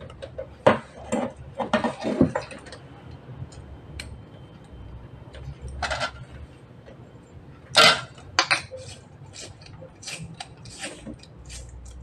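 Screwdriver and small screws clinking and scraping against a metal electrical junction box and lamp receptacle as the receptacle is fastened: a string of irregular sharp clinks and short scrapes, loudest about eight seconds in.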